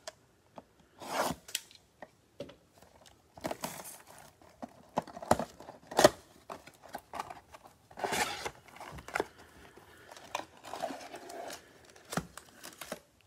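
Plastic shrink wrap being torn and crinkled off a cardboard trading-card box in irregular sharp rips and crackles, then the box being opened and its foil card packs handled.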